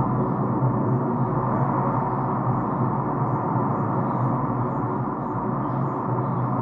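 Background ambient music: a steady, sustained gong-like drone with faint high ticks repeating at an even pace.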